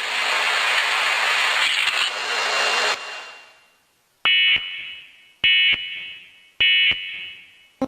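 Emergency Alert System end-of-message tones: three short, shrill digital data bursts about a second apart, each trailing off, signalling the end of the alert test. They follow a steady hiss that stops about three seconds in.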